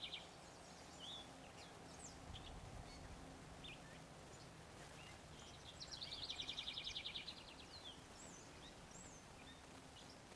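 Wild birds calling: a rapid high trill lasting about a second and a half past the middle, the end of another trill right at the start, and scattered short high chirps in between.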